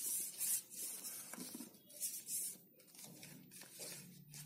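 A sheet of coloured paper rustling and crinkling as it is folded and creased by hand against a tabletop. A few short rustles, mostly in the first half.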